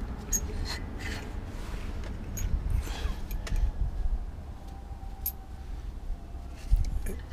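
Light metal clicks and taps of pliers and brake pad retaining pins being worked out of a disc brake caliper and set down on concrete, several separate clicks over a low rumble.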